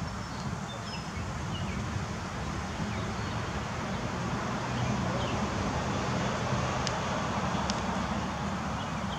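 Steady outdoor background noise: a low rumble and a rushing hiss that swell slightly past the middle, with a few faint bird chirps.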